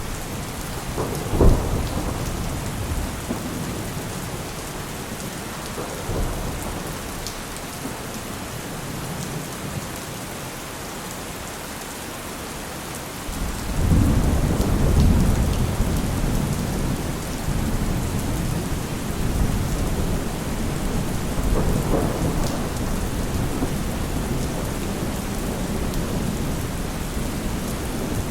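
Heavy rain falling steadily in a thunderstorm, with a sharp crack of thunder about a second and a half in. A long, low rolling rumble of thunder builds about halfway through, and weaker rumbles follow.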